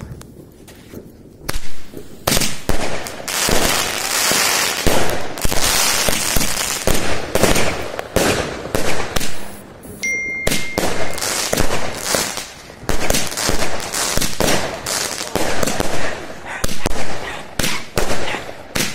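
Small consumer fireworks going off: a quick string of bangs and crackling bursts with hissing between them, starting about a second and a half in and keeping on without a break.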